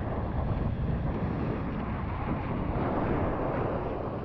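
Wind buffeting the microphone of a kiteboarder's camera, with the rush of the kiteboard skimming over the water, a steady rushing noise.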